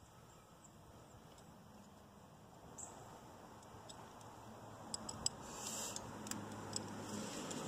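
Faint clicks and scraping as hands fit the throttle linkage onto a tractor carburetor. It is quiet at first, and small sharp clicks and rustling pick up in the second half.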